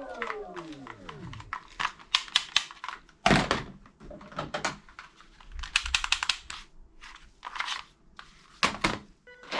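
Rapid plastic clicking and clacking from toy guns being handled and cocked, with a louder knock about a third of the way in and another near the end. A falling tone fades out in the first second and a half.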